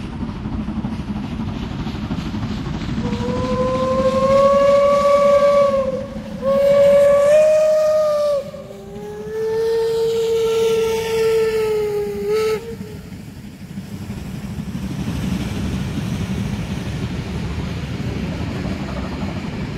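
Steam locomotive whistles on a double-headed steam train (DR class 23 and class 01.10 locomotives) sound three long blasts, the third lower in pitch, over the train's rumble. Afterwards the passenger coaches roll past with a steady rumble.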